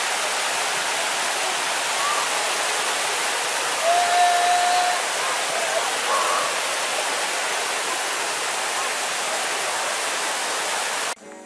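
Steady rush of a waterfall, with a brief voice call about four seconds in. Near the end it cuts off abruptly to quieter guitar music.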